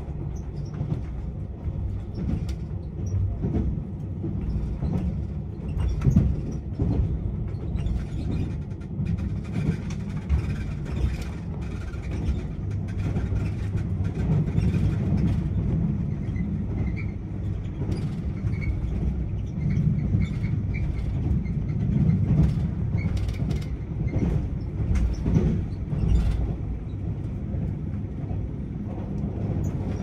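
Cabin noise of an electric limited express train running at speed: a steady low rumble from wheels and rails, with scattered clacks and knocks.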